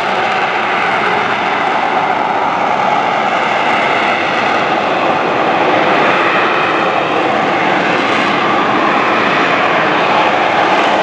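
AV-8B Harrier II's Rolls-Royce Pegasus turbofan running at high power: a loud, steady jet roar that holds level throughout, as in the jet's hover.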